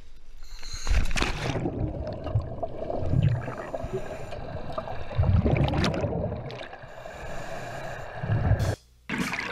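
A diver plunging off a boat into the sea with a splash about a second in, followed by muffled underwater bubbling and rushing water in several low surges. The sound briefly cuts out near the end.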